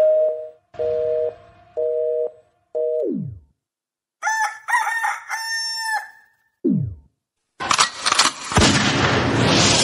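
Pre-recorded dance-mix intro played over a hall PA: a row of short beeps about a second apart, the last sliding down in pitch, then a rooster-crow sound effect, another quick downward slide, and a loud rising whoosh leading into the music near the end.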